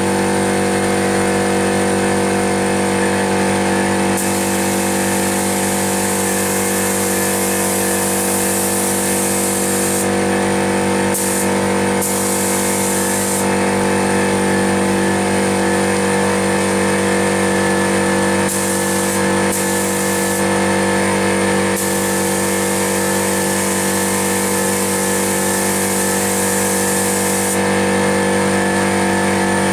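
Air-fed gravity-feed spray gun hissing as 2K paint is sprayed, the hiss stopping and starting several times as the trigger is released between passes, over the steady hum of an air compressor running.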